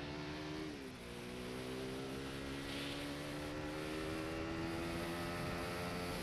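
Motorcycle engine running under way, its pitch dropping about a second in as it shifts up a gear, then climbing slowly as the bike gains speed, with another drop at the very end.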